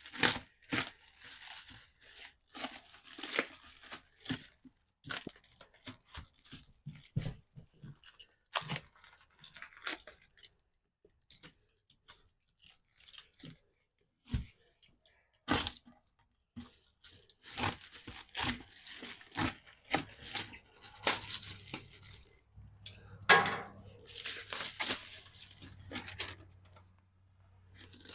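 Irregular scraping, rubbing and knocking of a rubber golf cart tire and its metal wheel rim being handled and worked on a manual mini tire changer.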